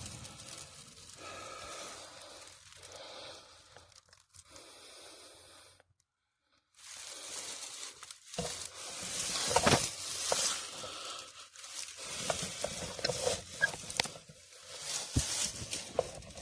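Rustling and scraping with scattered sharp clicks and light knocks, the handling and tool noise of work under a truck at its starter; the sound cuts out completely for a moment about six seconds in.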